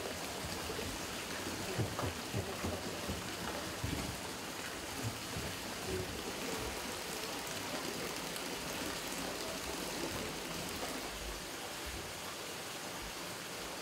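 Steady splashing and trickling of water in an indoor fishing pond, with a few soft low thumps in the first few seconds.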